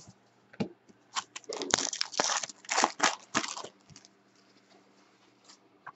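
Foil wrapper of a Panini Select basketball card pack crinkling and tearing as it is opened by hand and the cards are slid out. There is a run of crackly rustles for about three seconds, then a few faint ticks.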